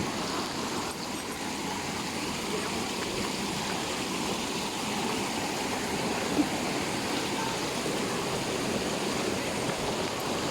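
Steady rushing of a mountain stream flowing over rocks. A single short knock sounds about six seconds in.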